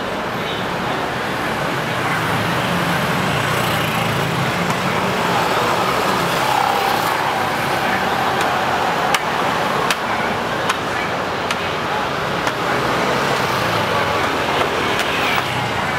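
Steady street traffic with vehicles passing, swelling briefly in the first half. A few sharp clicks stand out near the middle, with some faint voices.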